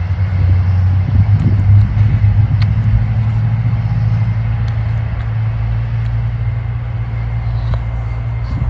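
A steady low engine hum, strongest a second or two in and easing slightly after, with a few faint ticks over it.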